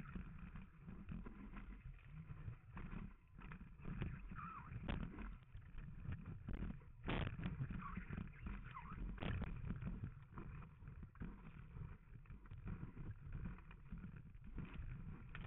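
Wind and water rushing over a camera mounted low on a kiteboard riding a wave, a dense low rush broken by irregular knocks and splashes.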